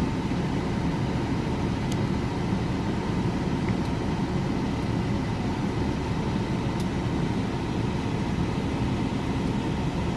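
Steady low mechanical rumble throughout, with a couple of faint light clicks as small door-lock parts are put back together.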